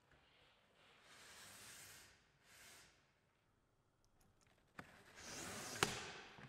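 Rudder control line of an inflatable kayak being pulled through its fittings to lower the rudder blade: faint rustling swishes of cord sliding over the hull, then a few small clicks and one sharp click near the end.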